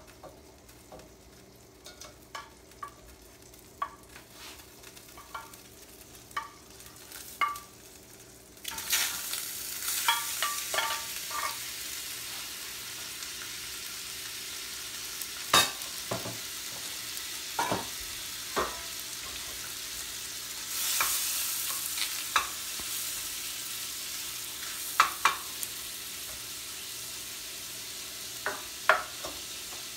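Raw shell-on shrimp frying in melted butter in stainless steel pans: a steady sizzle sets in suddenly about nine seconds in and swells a little past the twenty-second mark. Light clicks and taps come before it, and sharp knocks of a silicone spatula against the pans are heard through it as the shrimp are stirred.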